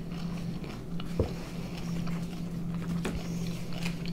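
Two people chewing boiled beef pelmeni close to the microphone, soft wet mouth sounds, with one sharp click about a second in over a steady low hum.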